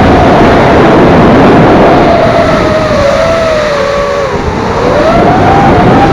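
FPV racing quadcopter motors whining, the pitch dipping and climbing again with the throttle, over heavy rushing noise from wind and prop wash.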